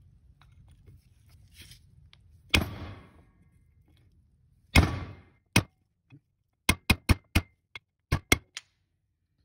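Hammer blows on a bearing driver, driving a new pump bushing into a 4L80e transmission pump body: two separate blows with a short ringing tail, then a quick run of about eight sharper taps.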